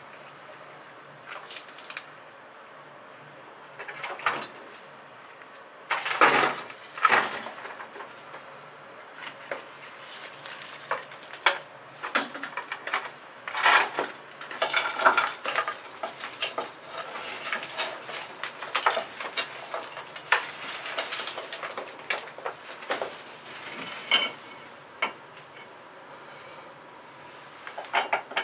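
Loose bricks and stone rubble being picked up, set down and stacked by gloved hands: irregular clinks, knocks and scrapes, heaviest a few seconds in and again around the middle.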